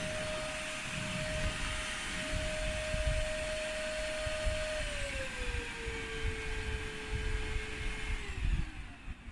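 Bossman Kaden Pro K2 cordless stick vacuum cleaner running, a steady motor whine over rushing air. About five seconds in, the whine steps down in pitch. Near the end it winds down and fades as the motor is switched off.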